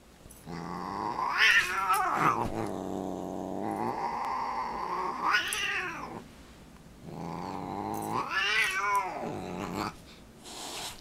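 Siamese cat growling long and low, rising three times into a loud wailing yowl: a warning growl at the dog it is swatting.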